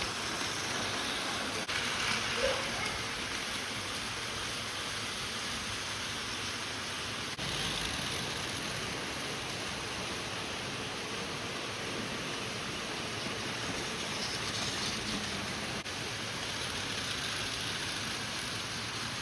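Battery-powered Plarail 500 TYPE EVA Shinkansen toy train running on plastic track, a steady whirring rattle of its small motor and wheels.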